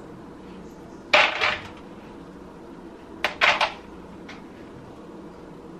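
Cooked rice being scooped from a metal pot into a disposable aluminium foil tray: two short scraping clatters of utensil on cookware, about a second in and just after three seconds, with a fainter knock after four seconds.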